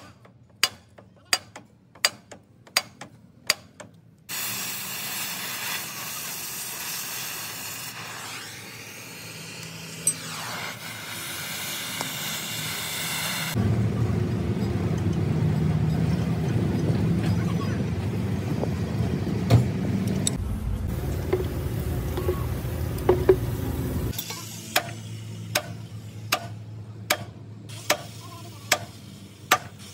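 Sledgehammer blows on the steel steering knuckle and center-pin joint of a Cat motor grader, a steady run of sharp metallic strikes about one and a half a second, while working the center pin loose. The strikes stop after about four seconds, give way to a long stretch of steady hissing noise, and start again for the last five seconds.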